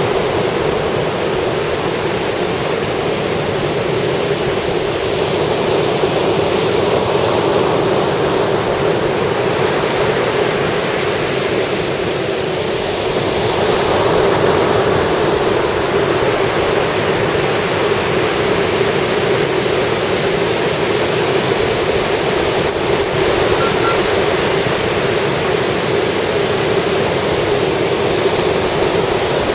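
Ocean surf breaking and washing up a beach in a continuous rushing wash, swelling a little about halfway through.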